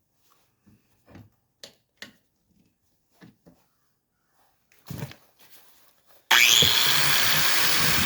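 A few light clicks and knocks of parts being handled, then about six seconds in a loud power tool starts abruptly and runs steadily.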